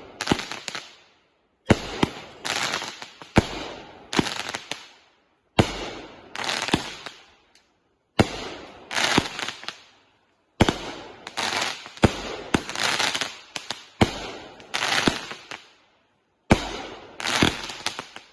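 Consumer firework cake firing shot after shot: each sharp report is followed by a crackling tail as the shell bursts, about once a second, with a few short breaks.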